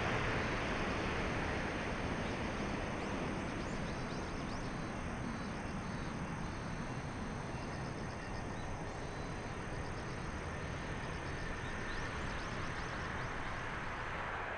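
Jet noise from an Airbus A330-941's Rolls-Royce Trent 7000 turbofans as it touches down and rolls out along the runway: a broad, steady roar that slowly fades. Faint high chirps run through the middle of it.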